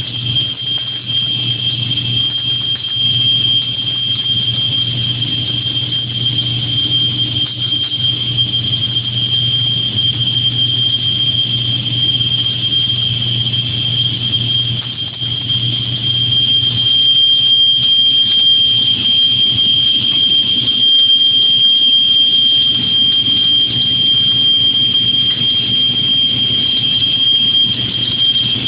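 Automatic street-light-pole welding machine running: a steady high-pitched whine over a low hum and hiss, growing a little louder about halfway through.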